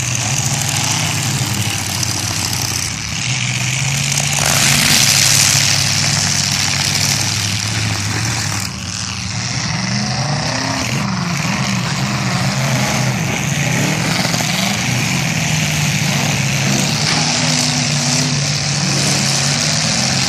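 Several demolition derby cars' engines running and revving together, the pitch rising and falling as they drive and push through the mud, with a louder surge about four to six seconds in.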